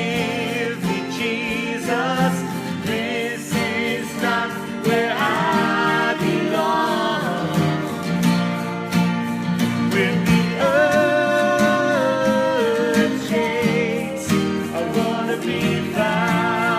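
Live worship-band music: a vocalist singing a slow melody with vibrato over guitar and band accompaniment.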